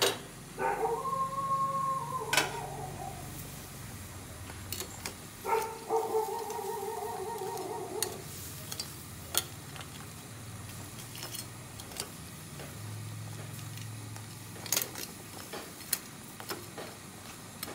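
Shrimp boiling in an aluminium pot over a gas burner, with metal tongs clicking against the pot again and again. Two long howl-like tones, each about two seconds, sound in the first half, from an unseen source.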